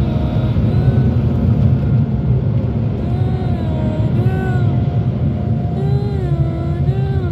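Steady low rumble of a car heard from inside the cabin, with faint wavering tones that glide up and down over it.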